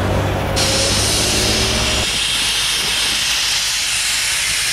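Low rumble of a passing passenger train that cuts off about two seconds in, overlapped and followed by a steady, loud hiss of escaping steam from steam locomotive Southern Railway 2-8-0 #630.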